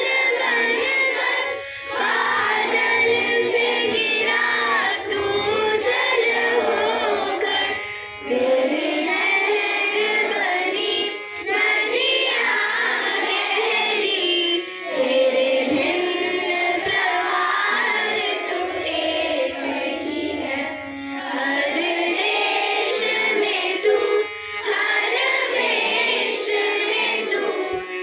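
Group of children singing a song together in phrases, with short breaks between the lines.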